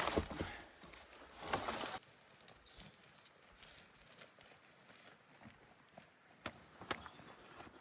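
Firewood being cut from a fallen tree: a sharp knock and two harsh strokes of wood being worked in the first two seconds, then faint scattered knocks and rustling with two sharper clicks near the end.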